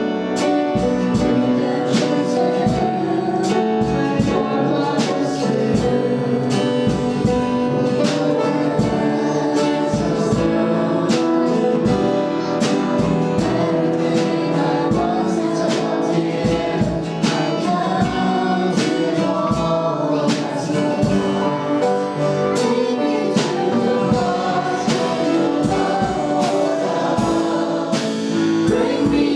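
Worship band playing a song with group singing, over a steady drum beat and guitar.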